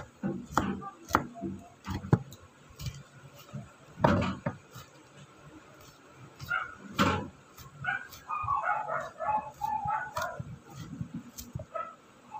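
Kitchen knife chopping garlic cloves on a wooden cutting board: irregular knocks of the blade on the wood, the loudest about four and seven seconds in. A patch of indistinct background sound comes between about eight and ten seconds in.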